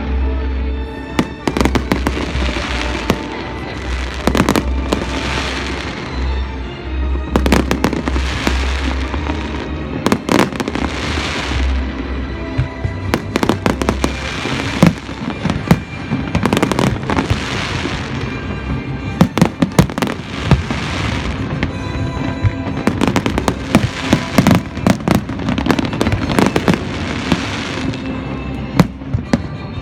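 Large aerial fireworks display with shells bursting one after another: many sharp bangs, some in quick clusters of several at once.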